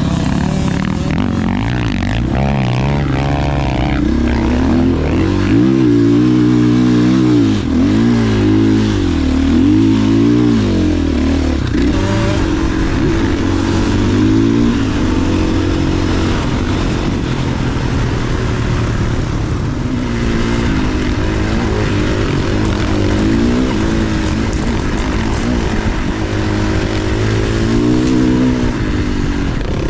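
Dirt bike engine revving up and down over and over as it is ridden, its pitch rising and falling with the throttle, most busily in the first third and again near the end.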